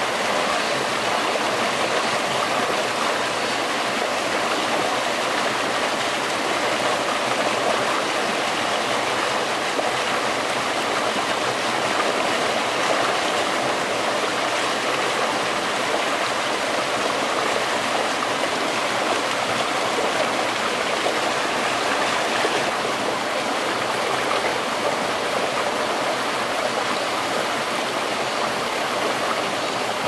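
Forest stream flowing: a steady, unbroken sound of running water.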